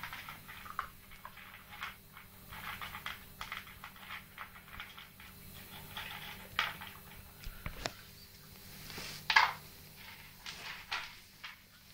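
A six-week-old Staffordshire bull terrier puppy moving about: a run of small scuffling and tapping noises, with one louder short sound about nine seconds in, over a faint steady hum.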